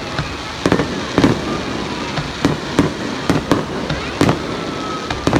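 Fireworks display: a quick, irregular string of shell bursts, about a dozen bangs in five seconds, over a steady background rush of noise.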